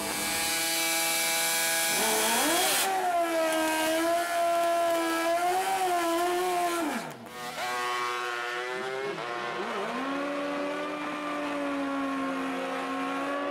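Two-stroke drag bike engine revved high and held for a burnout, with a hiss of spinning tyre over the first few seconds. After a short break about seven seconds in, the engine revs up again, holds a steady high pitch, and drops near the end.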